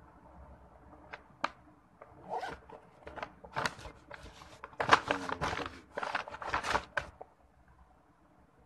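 Gift packaging being handled: irregular rustling and rasping strokes from a black travel pouch and a paper shopping bag, loudest in the middle, after a few light clicks.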